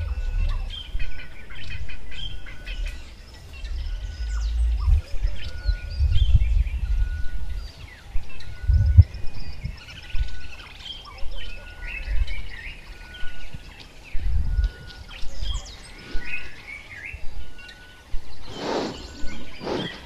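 Several wild birds calling and chirping, one of them repeating a single short note about once a second, over gusty wind rumbling on the microphone. Near the end, a Cape buffalo sniffs at close range with a quick run of loud breaths.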